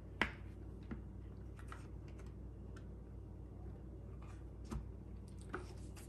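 Scattered clicks and taps of dishwasher sump parts being handled and pressed together as the new sump is fitted around the heater and motor seal, the sharpest click just after the start.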